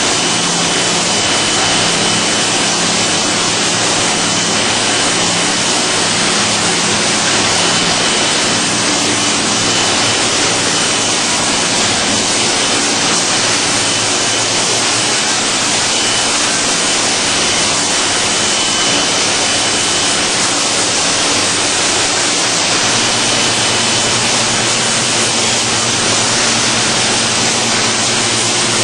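LS-306 vegetable washing machine running: a steady loud rush of water with a machine hum underneath and a faint high whine.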